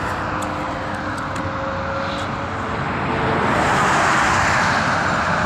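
Motorway traffic passing: steady tyre and engine noise from cars and trucks, growing louder about halfway through as a vehicle draws near.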